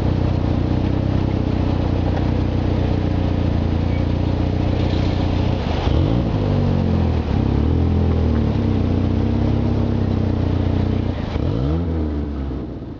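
Car engines running and accelerating away at close range over a steady low engine drone, with a rising rev about six seconds in and another near the end. The sound then fades out.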